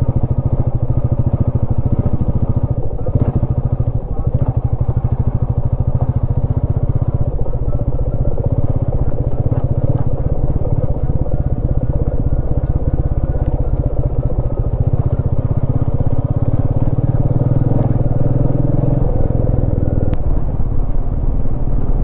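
Motorcycle engine running while riding, with a steady, even exhaust beat. The engine note rises gently about two-thirds of the way through, then drops back sharply about three seconds before the end.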